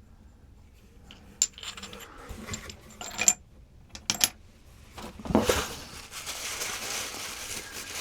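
Knapped stone bifaces and preforms clicking and clinking against each other as they are handled, a few sharp clinks in the first half. From about five seconds in, a steady crinkling of packing wrap as the next piece is unwrapped.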